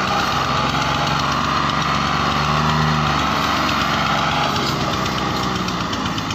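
Ford 4610 tractor's three-cylinder diesel engine running steadily under load while pulling an overloaded trolley. The note shifts slightly about halfway and turns more uneven and pulsing near the end.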